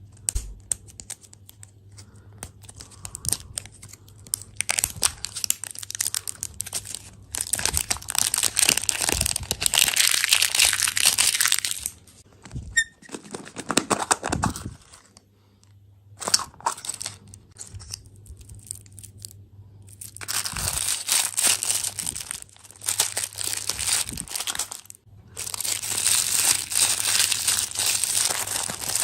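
Plastic candy wrappers and packaging crinkling and tearing open in long bursts of crackling, with quieter gaps between them.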